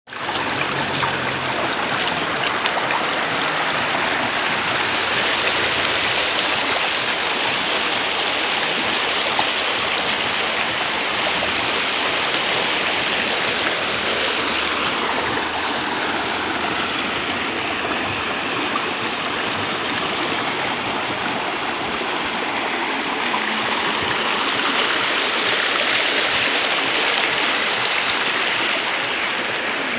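Shallow river water rushing over and between rocks, a steady, even rush.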